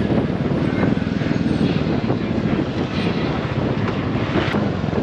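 Motorcycle engine running at a steady cruise, with wind rushing over the camera microphone. A brief click about four and a half seconds in.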